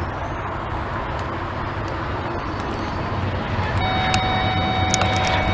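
Locomotive air horn sounding one steady blast of under two seconds, starting about two-thirds of the way in, over a low rumble that slowly grows louder.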